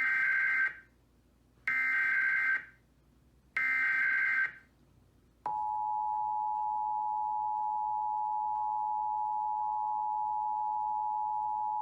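Emergency Alert System SAME header: three bursts of screeching digital data tones, each just under a second long and about two seconds apart. About five seconds in, the steady two-tone EAS attention signal begins and holds, announcing an incoming alert.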